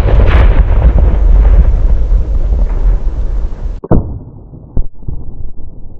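The long, rolling rumble of a one-pound Tannerite exploding target dying away for about four seconds after the blast. After an abrupt cut near the end, two sharp rifle shots about a second apart over a lower hiss.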